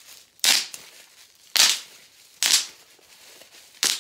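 Bubble wrap being twisted and squeezed by hand, its bubbles bursting in four sharp pops roughly a second apart.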